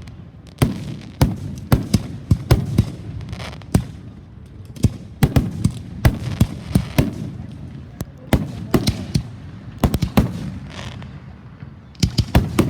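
Fireworks going off: many sharp bangs in quick, irregular clusters separated by short lulls, with crackling between some of the reports.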